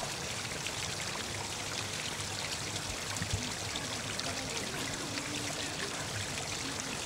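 Small garden rock waterfall: water pouring steadily off a flat stone ledge and splashing and trickling down over rounded rocks.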